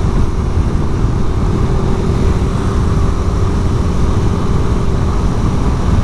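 Suzuki Satria F150 Fi motorcycle's single-cylinder engine running at a steady cruising speed. A dense, steady rumble of wind buffets the camera microphone over it.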